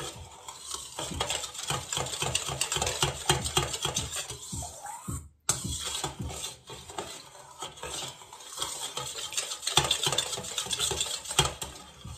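Metal spoon stirring a thin liquid of yeast, sugar, salt and olive oil in a stainless steel bowl, scraping and clinking quickly against the bowl's sides and bottom, with a brief break a little over five seconds in.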